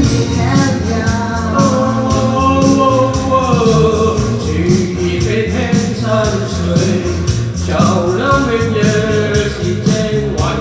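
Background music: a sung melody over a backing track with a steady beat and bass.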